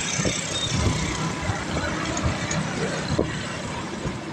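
Wind buffeting the microphone in irregular low gusts while riding a bicycle along a road, over a steady rush of road and traffic noise.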